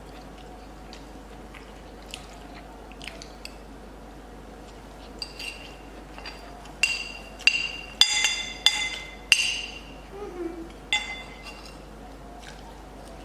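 Cutlery clinking against a dish, a quick run of clinks, each with a short bright ring, bunched together in the middle of the stretch.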